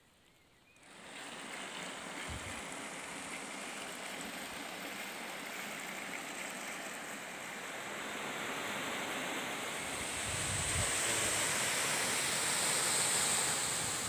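Rushing water of a waterfall: a steady noise that starts about a second in and grows louder and hissier toward the end.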